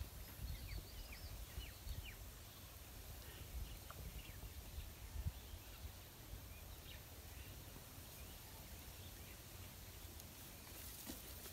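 Faint outdoor ambience: a steady low rumble with scattered short, high bird chirps, most of them in the first two seconds.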